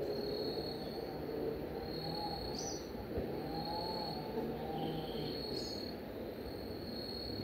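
Insects trilling at one steady high pitch, in stretches of a second or so with short breaks between them. Two short rising bird chirps come through, one near three seconds in and one a little before six seconds.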